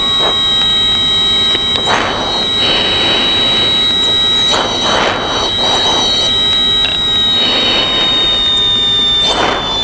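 The U-2's audible angle-of-attack tone sounds as one steady high tone in the headset, sliding slightly lower near the end, over the steady noise of the cockpit intercom. Short rushes of breath in the pilot's oxygen mask come through the intercom microphone every few seconds.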